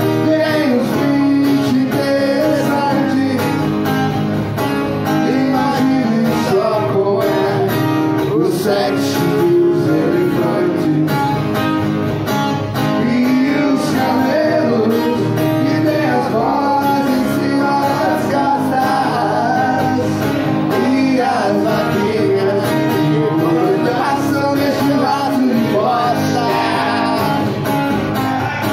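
Two acoustic guitars strummed with a voice singing over them, played live.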